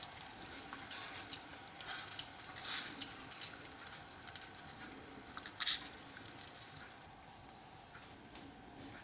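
Half a lemon squeezed by hand, its juice dripping into sugar-and-honey syrup, faint and wet. One short sharp tap a little past halfway is the loudest sound.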